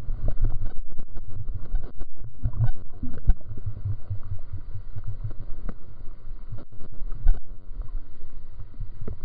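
Muffled low rumbling and thumping of water moving around a camera held underwater, with no clear high sounds.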